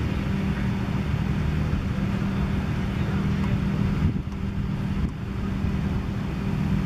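A steady low droning hum runs throughout, with a single knock of a cricket bat hitting the ball about four seconds in.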